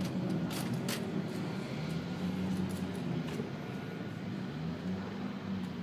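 Distant car engines: a low, wavering drone, with a few faint clicks in the first second.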